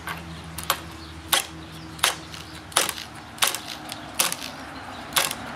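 A series of sharp mechanical clicks, about one every 0.7 s, from a cordless combi drill stalled on a 12 mm stainless coach screw that it cannot drive.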